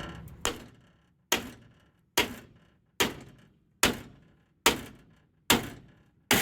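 A run of about eight heavy, evenly spaced blows, a little under a second apart, each dying away quickly. The last, near the end, is the loudest, with a longer crashing tail.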